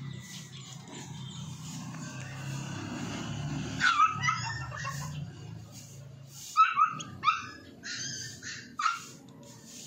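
Baby chicks peeping: short, high calls that slide down in pitch, a pair about four seconds in, then a quick run of them from about six and a half seconds on. A low rumble runs underneath for the first six seconds or so.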